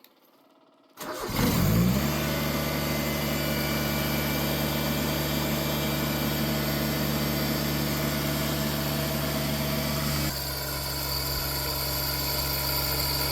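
1988 John Deere 322's Yanmar three-cylinder gas engine starting about a second in, catching and picking up speed, then running steadily; its tone shifts and it gets a little quieter about ten seconds in.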